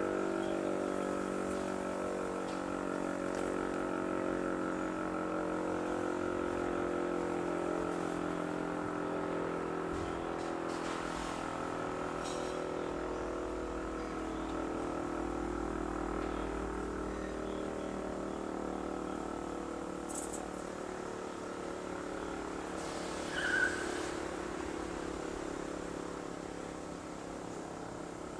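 VEM DS 977 electric mechanical siren sounding a steady, many-toned wail whose pitch sags slightly and whose level slowly eases off. A short high chirp cuts in near the end.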